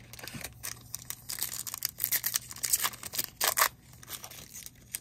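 Crinkling and tearing of a trading-card pack wrapper being ripped open and the cards handled, in a run of sharp bursts from about one and a half to three and a half seconds in.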